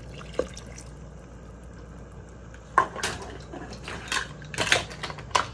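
Water poured from a cup into a stainless-steel Instant Pot of stew, then a wooden spoon stirring it and knocking sharply against the metal pot several times in the second half.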